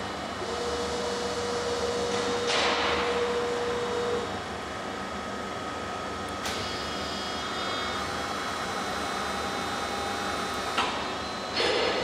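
Okuma LC50 heavy-duty CNC lathe running, a steady mechanical hum with whining tones. About two and a half seconds in comes a sudden hiss that fades over a second. A sharp click falls about halfway through, another near the end, followed by a short burst of hiss.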